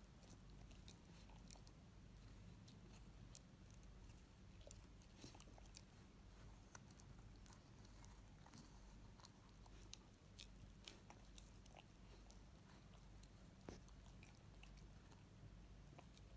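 Chow chow puppy gnawing and biting into a hard raw quince: faint, irregular crunches and wet clicks of teeth on the fruit.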